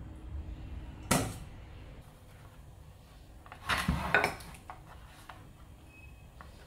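Kitchenware clattering on the worktop: one sharp knock about a second in, then a quick cluster of clinks and knocks in the middle, as the plate and cleaver are handled.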